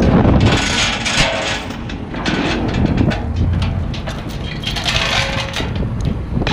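A steady diesel rumble from the truck crane, under an irregular rattle and clank of steel chain being wrapped and hooked around an H-beam pile against the leads.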